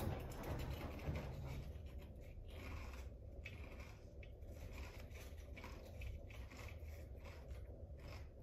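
Wood fire crackling inside a cast iron wood stove: irregular pops and snaps over a low, steady rumble.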